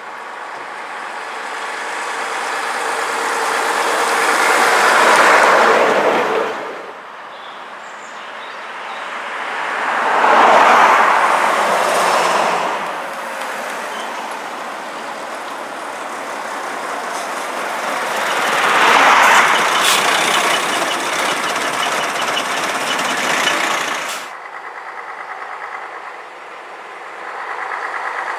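Vintage diesel buses driving past one at a time on a road: engine and tyre noise build to a loud peak as each one goes by, three passes in all. The sound breaks off sharply about six seconds in and again near the end.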